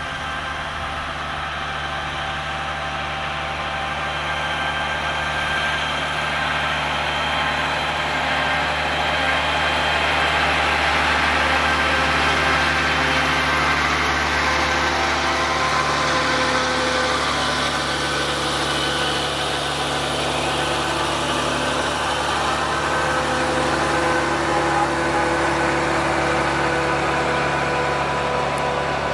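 A heavy diesel engine runs steadily with a low, even hum. It grows louder over the first dozen seconds, then holds level.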